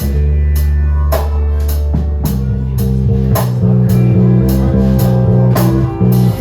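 Live blues band: an electric bass guitar plays a run of low, held notes, with drum kit strikes keeping time about twice a second.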